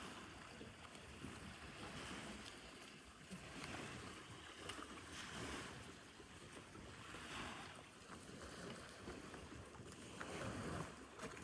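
Faint sea sounds: water washing and wind on the microphone, swelling and fading every couple of seconds.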